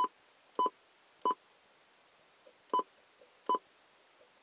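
Cobra 29 LX CB radio key tones: five short, identical beeps, one for each step as the menu is scrolled, three in quick succession and then two more after a pause of about a second and a half.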